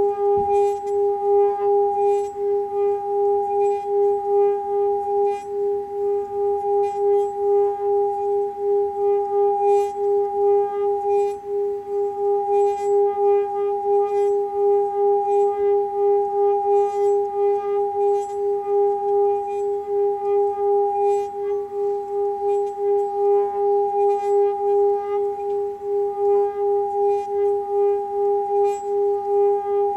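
Seven-chakra metal singing bowl held on the palm and sung by circling a padded mallet around its rim: a sustained ringing tone with a second, higher tone above it, pulsing in loudness about twice a second. Faint ticks of the mallet against the rim sit on top.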